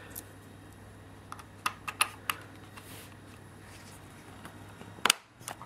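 Small plastic clicks and scrapes as a Logitech USB wireless receiver is fumbled against a laptop's USB port, turned round after going in the wrong way up. One louder click about five seconds in. A low steady hum runs underneath.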